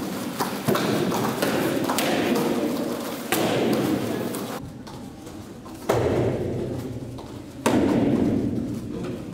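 Four sudden heavy thuds a few seconds apart during taekwondo practice, each trailing off in a long echo as in a large hall.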